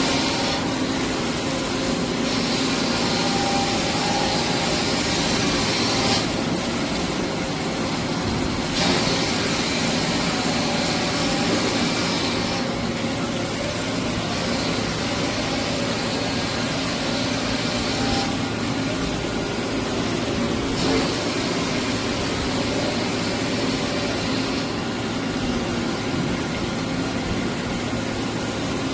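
Sumitomo Finetech KSL-12 CNC double column surface grinder running, with a steady machine hum. A higher grinding hiss comes and goes every two to four seconds.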